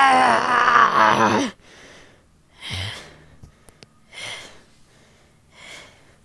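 A cartoonish voice gives a long, wavering wail that breaks off sharply about a second and a half in. Three short breathy gasps follow, spaced about a second and a half apart.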